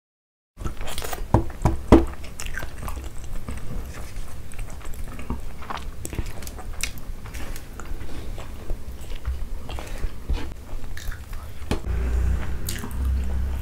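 Close-miked eating by hand: chewing and mouth sounds, with fingers mixing rice and scraping and tapping on steel plates, giving many short sharp clicks. It starts after about half a second of silence.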